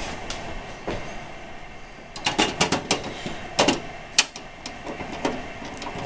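Clicks and light scraping of metal as steel blank slot-cover plates are fitted into a computer case and small machine screws are turned in with a screwdriver. The clicks come in a quick cluster about two seconds in.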